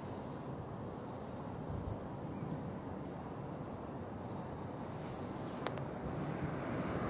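Steady, low outdoor background noise with no clear source. A few faint, thin high chirps and a single sharp click about five and a half seconds in.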